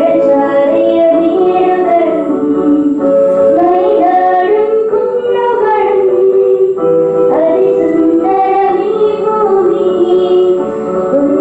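A song: a female voice singing a melody with held notes over steady instrumental accompaniment.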